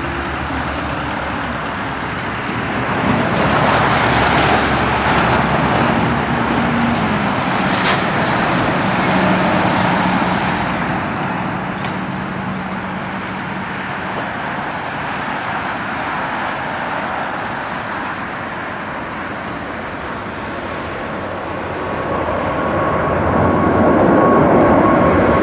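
Boeing 777-300 airliner's twin turbofan engines at takeoff thrust: a steady jet roar through the takeoff roll and liftoff, growing louder near the end as the aircraft climbs toward and over the listener.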